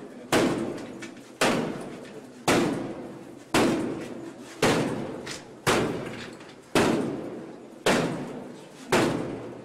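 A door being battered, heavy blows landing evenly about once a second, nine in all, each with a short ringing decay.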